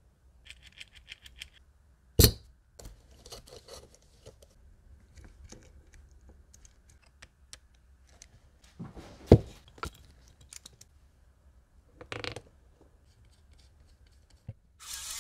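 Plastic and metal parts of a small airsoft chainsaw mechanism being handled and fitted together: scattered clicks and knocks, the loudest about two seconds in and about nine seconds in, with a quick run of light ticks near the start. Near the end a small electric motor starts and runs with a steady whir.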